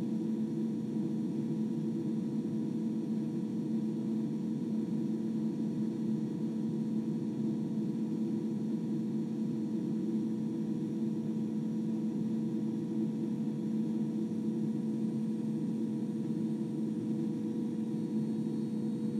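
Upright vacuum cleaner running at a steady pitch and level, a constant motor hum over rushing air noise. It is heard through the walls of a VOMO portable vocal booth, which muffle it somewhat.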